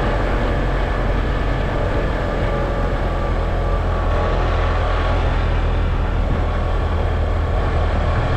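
A car driving at a steady speed: a steady low engine hum under road and tyre noise.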